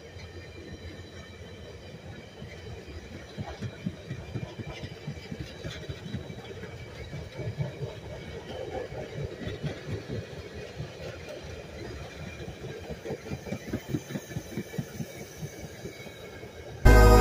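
A train of stainless-steel passenger cars rolling past, with a low rumble and clusters of wheel clicks and clacks on the rails that grow louder and closer together. Music cuts in abruptly near the end.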